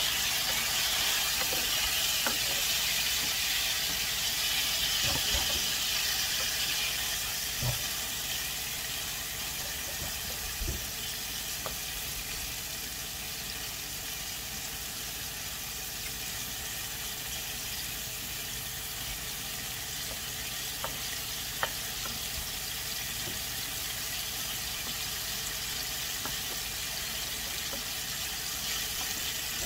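Cubes of tofu frying in oil in a nonstick pan, a steady sizzle that is louder for the first several seconds and then settles lower. A wooden spoon stirs them, with a few light knocks against the pan.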